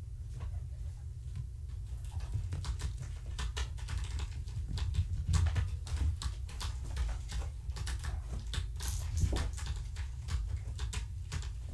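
Kittens at play: a patter of light clicks, taps and scratches from small paws and claws on carpet, toys and a carpeted cat tree. The sounds come thick and irregular from about two seconds in, over a low steady hum.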